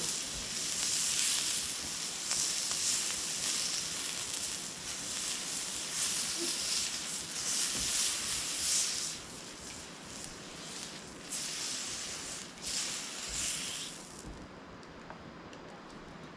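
Beef sizzling on an iron griddle: a high hiss that swells and eases in waves, then drops away near the end.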